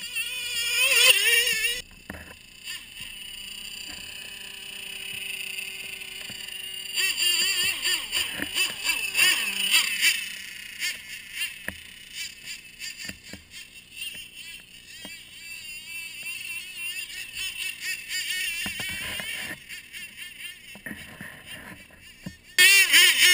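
Small motor of a radio-controlled Arctic Cat snowmobile model whining, its pitch wavering up and down with the throttle. It is loudest in spells about a second in, from about seven to ten seconds in, and again just before the end.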